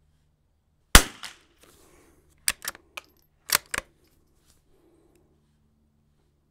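A bolt-action .22 LR sporter rifle fires a single sharp shot about a second in, then its bolt is worked: a quick series of metallic clicks and clacks as the spent case is ejected and a fresh round chambered.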